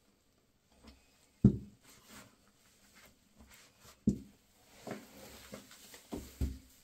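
Several separate knocks and clunks, with faint rustling between them, as a flexible water supply hose is unscrewed from a wall angle stop valve and pulled away; the loudest knock comes about one and a half seconds in.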